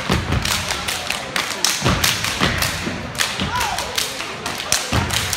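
Step team stepping in unison on a hardwood gym floor: a fast, uneven run of heavy foot stomps and sharp claps.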